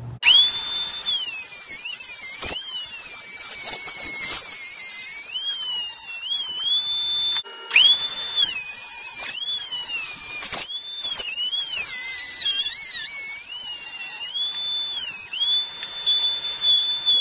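Porter-Cable 3¼-horsepower router, mounted upside down as a router table, running with a high whine that sags in pitch each time the new bit bites into the hard hickory leg blank being pattern-routed, and climbs back when the cut eases. The whine cuts out for a moment about seven and a half seconds in and picks straight back up.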